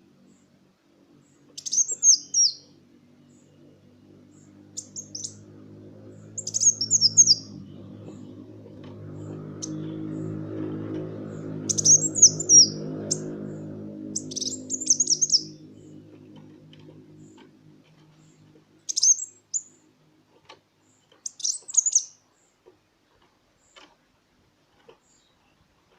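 Kolibri wulung sunbird singing: short bursts of high, quick twittering, repeated every two to three seconds. A low hum swells behind the song in the first half and fades out about two-thirds of the way through.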